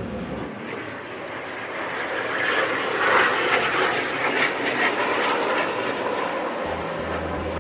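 Jet fighter flying past, its engine noise swelling to a peak midway and then fading.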